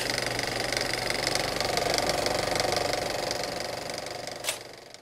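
A loud, steady, rapidly pulsing buzz that fades away near the end, with a single sharp click just before it dies out.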